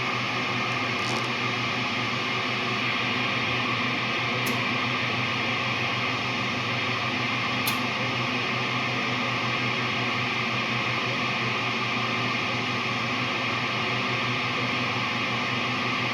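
Steady mechanical hum under a broad hiss, like a motor or fan running without change, with two faint clicks midway.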